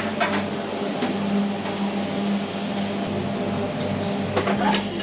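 A steady low machine hum with a few faint clicks, heard as café room sound.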